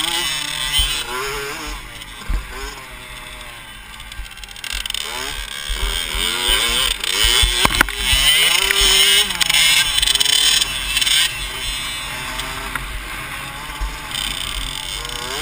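Dirt bike engine heard from a camera on the bike, revving up and down as it rides a motocross track. The throttle eases off from about two to five seconds in, then the engine revs hard and loud until about eleven seconds in.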